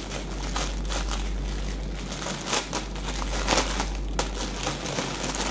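Clear plastic packaging bag crinkling as it is handled, a steady run of crackles with a few louder ones around the middle.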